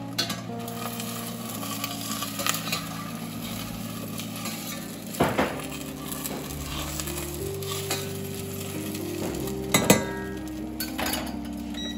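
Food sizzling in a stainless steel saucepan on an induction hob, with a metal spatula clinking and scraping against the pan. The loudest clinks come about five seconds in and near ten seconds.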